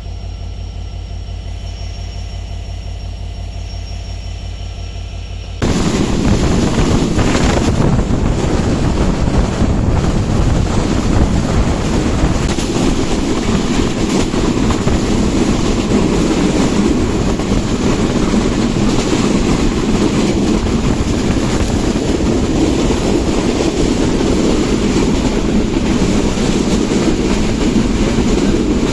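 Passenger train running along the line: a steady low hum at first, then about five and a half seconds in the sound turns suddenly much louder, a dense rushing noise of the train at speed that carries on steadily.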